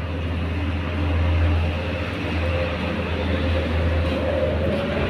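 A steady low engine rumble, like a motor vehicle running nearby, swelling about a second in, with a faint hum that rises slightly in pitch near the end.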